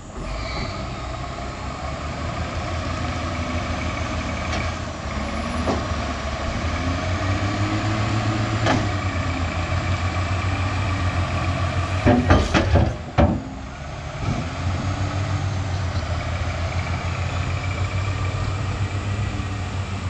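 Wheel loader's diesel engine running hard with a steady pulsing hum as the machine drives up with a loaded bucket. About twelve seconds in comes a short burst of loud knocks and thuds as the bucket dumps rock and soil, and then the engine runs on.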